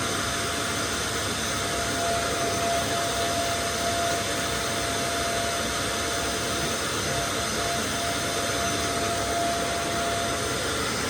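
Electric power sander running steadily with a constant whine, sanding paint and filler off a car's steel body panels.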